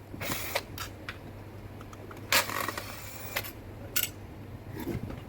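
Screwdriver work on a router's metal housing: a handful of short clicks, clinks and scrapes of a tool and small parts, one longer scrape about two and a half seconds in.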